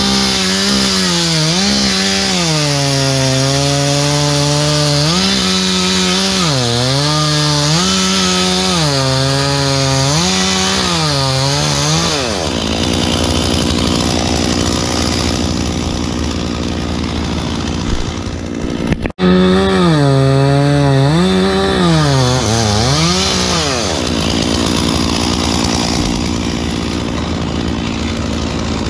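Stihl chainsaw revving up and dropping back again and again while cutting wood. There is a sudden brief cut-out about two-thirds through, after which the revving resumes and then settles to a steadier, lower running sound near the end.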